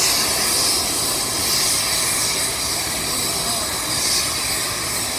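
Union Pacific Big Boy No. 4014, a 4-8-8-4 articulated steam locomotive, passing close by: a loud, steady rush of exhaust steam and running gear.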